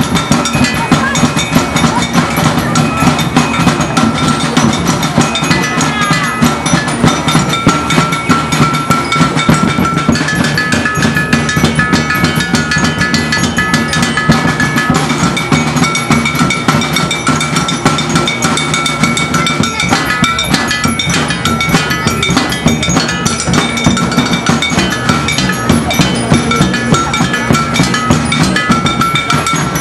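Percussion-driven street-dance music: continuous fast drumming with high ringing notes held over it.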